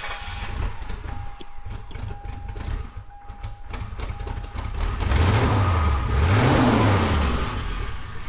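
The limousine's engine running just after its first start, revved up and let down twice about five seconds in. A thin steady high tone with short breaks sounds over it during the first half.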